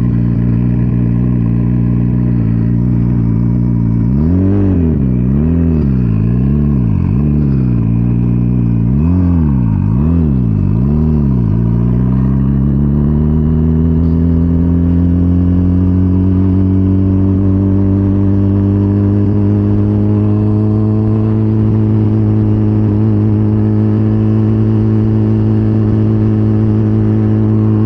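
Turbocharged 2023 Suzuki Hayabusa's inline-four engine running at low revs. It is revved in a quick series of about nine short throttle blips, then settles into a steady note that climbs gently and holds as the bike pulls away and rides on.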